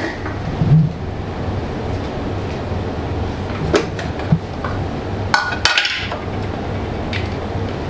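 A steady low hum, with a few light knocks and clinks of kitchen utensils, the loudest cluster about five and a half seconds in.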